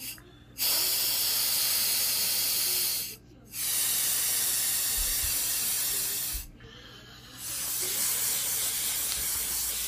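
Aerosol can sprayed straight into the mouth in three long hissing bursts, each about three seconds, with short pauses between.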